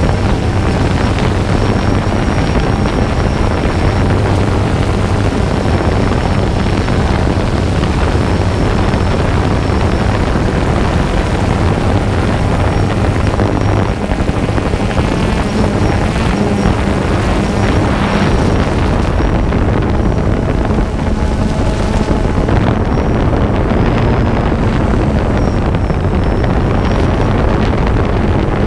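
Multirotor drone's propellers and motors running steadily, heard through the drone's own camera microphone, with wind noise on the mic.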